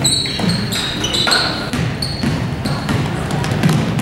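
Basketball play on a gym floor: sneakers squeak sharply again and again as players cut and run, with ball bounces and a steady murmur of voices from the gym behind.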